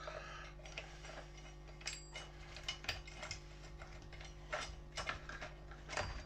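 Irregular metallic clicks and rattles from the removed chainsaw chain and parts being handled, a little busier near the end.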